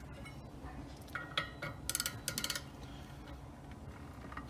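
Metal hand tools clicking and clinking against a Can-Am X3 secondary clutch as the third of the bolts holding it together is backed out, with a quick even run of clicks about two seconds in.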